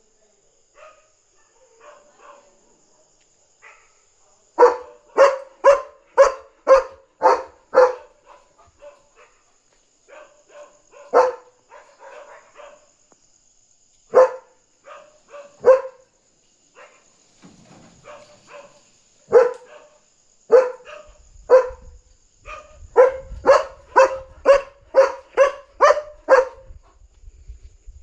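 German Shepherd barking in bouts as an alert at another dog outside: a quick run of about six loud barks, then single barks a few seconds apart, then another fast run of barks near the end, with fainter yelps between.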